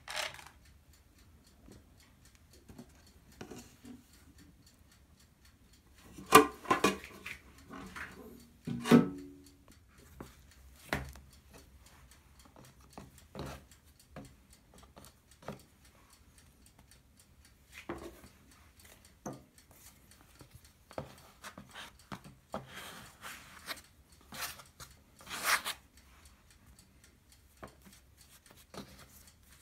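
Hands patting, pressing and rubbing wet ciabatta dough on a floured wooden board: scattered soft taps and rubs, with a cluster of louder knocks about six to nine seconds in.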